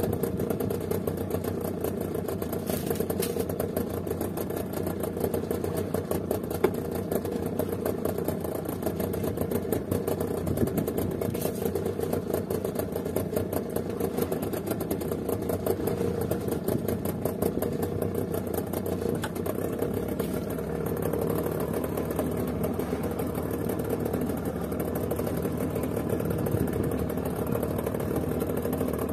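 Outboard motor running steadily at low trolling speed.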